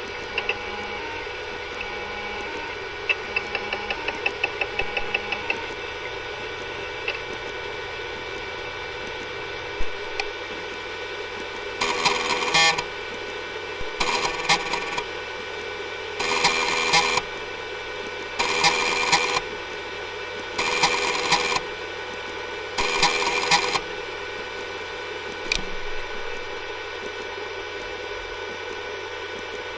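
Faulty hard disk drive running with a steady whine, a quick run of clicks a few seconds in, then six buzzing bursts, each under a second and about two seconds apart: the noises of a failing drive.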